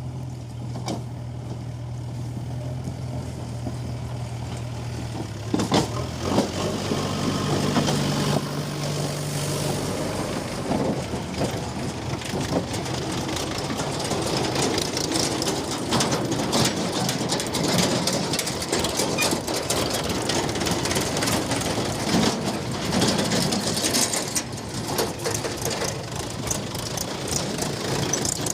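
Heavy diesel machinery running steadily, then from about five seconds in a louder, noisier clatter with many knocks. This fits a JCB 3DX backhoe loader working and stone rattling into a tractor trolley.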